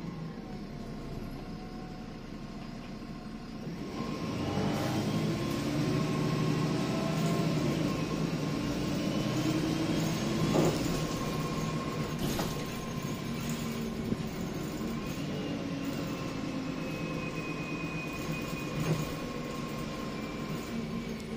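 Inside a MAN 18.240LF single-deck bus, its diesel engine running lightly for the first few seconds, then pulling harder and louder from about four seconds in, its pitch rising under acceleration. A steady high whine runs underneath, with a few knocks and rattles from the bus body.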